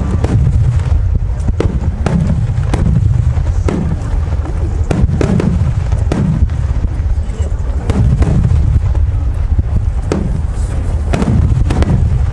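Large aerial firework shells bursting in quick succession: a sharp bang every second or so over a continuous low rumble of echoing booms.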